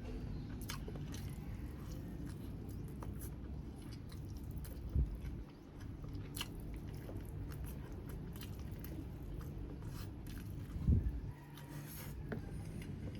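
Chewing and biting into grilled chicken, with small scattered clicks over a steady low hum. Two short, dull, low thumps come about five and eleven seconds in.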